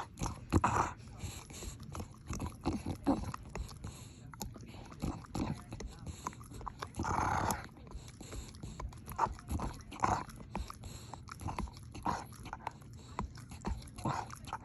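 A dog biting and chewing on a toy: irregular crunching clicks throughout, with a louder noisy burst lasting about half a second about seven seconds in.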